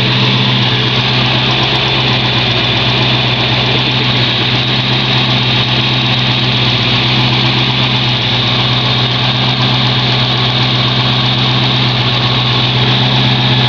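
1994 Ford Mustang GT's 302 (5.0 L) V8 idling steadily, its exhaust loud. The owner suspects a lifter tick, but any tick is hard to pick out over the exhaust.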